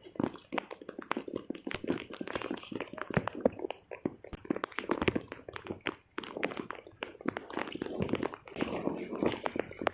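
Irregular taps, knocks and rustling from objects being handled close by, with no steady rhythm.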